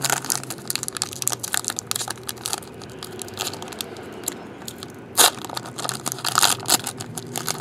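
Crinkling and crackling of plastic card packaging being handled, a dense run of small sharp crackles with a louder one about five seconds in.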